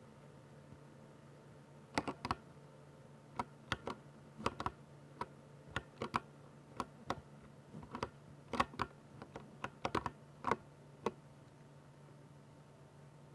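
Typing on a Ducky 60% RGB mechanical keyboard with silver switches: irregular keystrokes, some single and some in quick pairs, starting about two seconds in and stopping about two seconds before the end, over a faint steady low hum.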